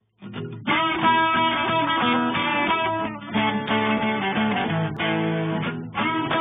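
Background music led by guitar, starting a fraction of a second in.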